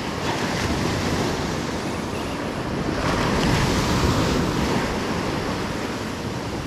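Ocean surf breaking and washing up a sandy beach, with wind buffeting the microphone. A wave swells louder about three seconds in, then eases off.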